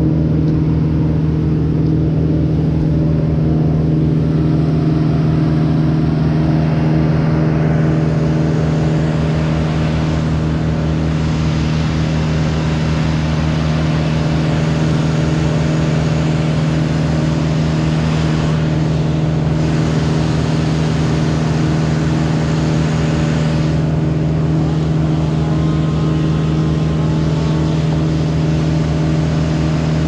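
An engine running steadily at a constant speed, a droning hum that neither revs nor changes.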